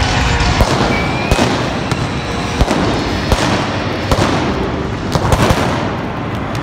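Indoor arena pyrotechnics going off: a string of sharp bangs, about one a second, over a dense crackling and hissing of sparks.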